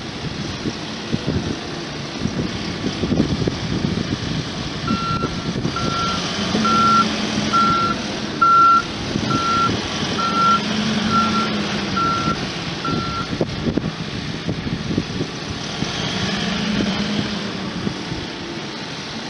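Case 580 Super N backhoe loader's diesel engine running, its reverse alarm beeping about ten times at roughly one beep a second, starting about five seconds in and stopping some eight seconds later: the machine is in reverse.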